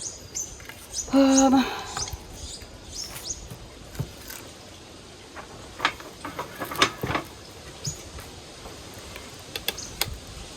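Knocks and clicks of a piece of wood being shifted and laid down, with birds chirping behind. A brief, loud pitched sound about a second in.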